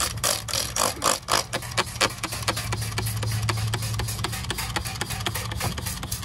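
Pressure washer running, a steady hum under fast, even ticking, as its spray jet blasts oily grime off a car's engine bay.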